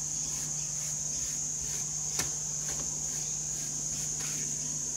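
Soft swishing strokes of a cotton shellac rubber pad being rubbed back and forth over a veneered wood panel, French polishing, with one slightly louder stroke about two seconds in. A steady high-pitched whine and a low hum run underneath.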